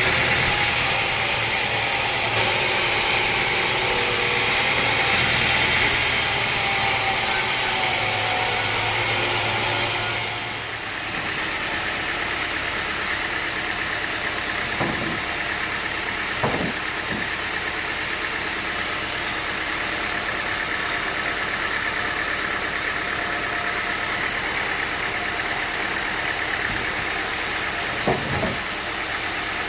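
Sawmill machinery running steadily. It is louder and hissier for about the first ten seconds, then settles lower, with a few short knocks later on.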